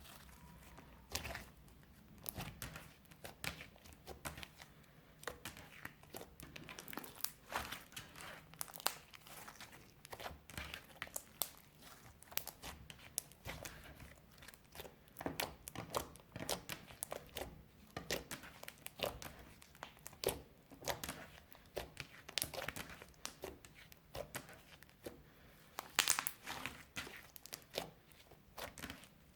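Clear slime mixed with crushed eyeshadow being stretched, folded and pressed by hand, giving a steady, irregular run of sticky crackles, clicks and small pops.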